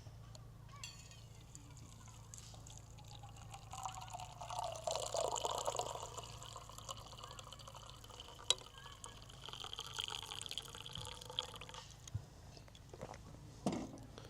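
Liquid being poured into a container, loudest about four to six seconds in, then a lighter, steadier stretch that stops near the end.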